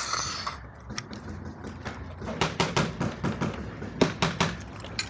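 Paintball gunfire: one sharp pop at the start, then about two seconds in a run of quick pops, about five a second, from a full-auto paintball marker and its paintballs striking the wall.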